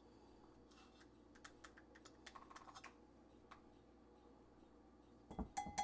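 Faint small clicks and scrapes of a plastic measuring spoon scooping baking powder from a metal can. Near the end come several louder knocks with a ringing clink, as things are set on or tapped against the bowl and counter.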